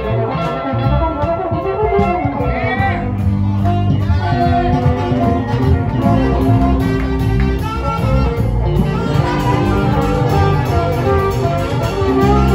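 Live band playing loud amplified music: a drum kit, electric guitars and bass, with a trombone in the band.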